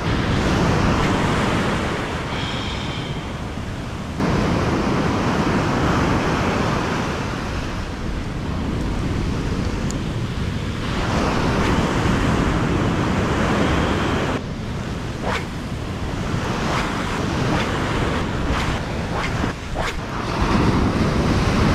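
Ocean surf breaking and washing on the beach, with wind buffeting the microphone; the steady rush shifts in level abruptly twice.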